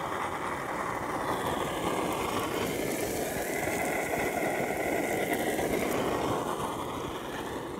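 Gas camping stove burning with a steady rushing roar under a pot of onions and carrots frying in oil.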